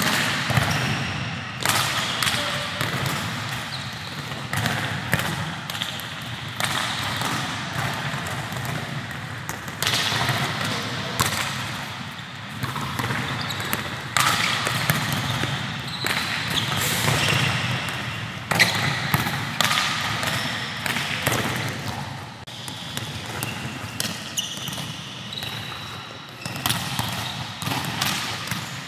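Many volleyballs being struck with hands and forearms and bouncing on a court in a large sports hall: irregular, overlapping slaps and thuds, several every second.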